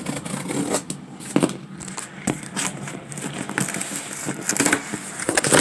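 Folding pocket knife slicing packing tape on a cardboard box, and the box being handled: irregular crackles, scrapes and knocks of tape and cardboard.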